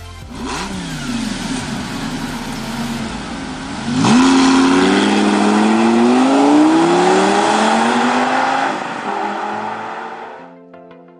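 Lamborghini Gallardo 5.0 V10 engine revving up and down. About four seconds in it pulls hard, its pitch climbing steadily for about five seconds, then the sound fades out near the end.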